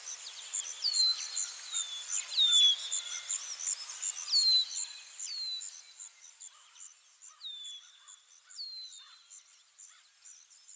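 Outdoor nature ambience: a fast, even insect chirp with a bird repeating a short falling call about once a second. It fades out over the second half.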